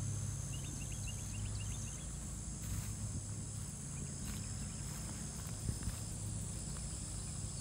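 Outdoor ambience in overgrown summer grass: insects buzzing steadily at a high pitch over a low steady hum, with scattered rustles and soft footsteps through the grass, and a few short bird chirps about a second in.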